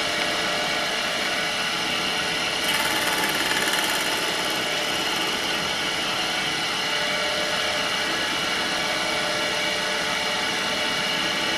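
Horizontal milling machine running steadily with a motor whine while cutting the teeth of a clock's contrate wheel; a brief higher hiss joins about three seconds in.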